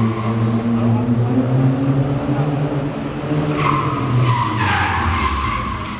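A car's engine running hard at high revs, then its tyres squealing loudly from about three and a half seconds in as the car skids through a turn.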